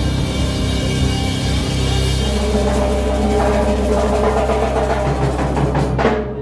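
Band music with a drum kit and bass keeping a loud, steady beat; the sound thins out abruptly just before the end.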